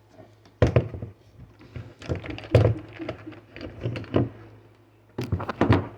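Irregular knocks, clunks and clicks of a hand coffee grinder being handled and set down, with two quick clusters near the end. A faint steady electrical hum sits underneath.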